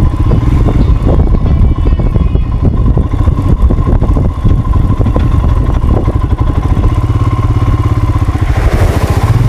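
Motorcycle engine running steadily while riding, loud and close to the microphone.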